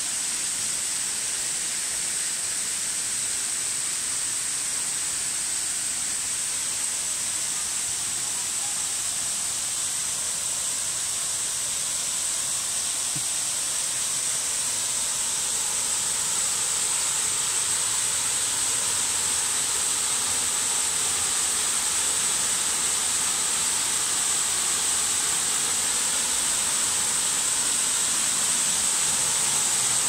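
Waterfall rushing over rock ledges, a steady noise that grows gradually louder, with a steady high hiss above it throughout.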